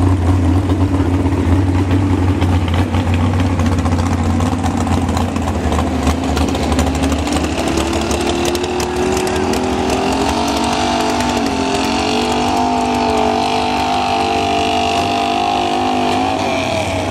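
Pulling truck's engine running hard under load. Its pitch climbs over the first several seconds, holds high and steady, then falls away near the end as the throttle is let off.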